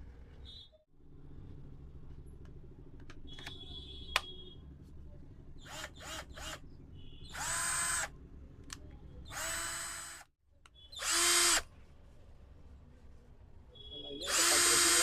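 Cordless DC screwdriver motor whirring in four short bursts, each spinning up quickly to a steady whine and stopping, with clicks of the trigger or direction switch in between; the last burst starts near the end and is the loudest.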